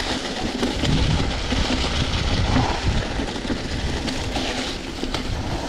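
Mountain bike rolling over a rough dirt trail: a steady rumble of tyres on the ground, with frequent small knocks and rattles from the bike.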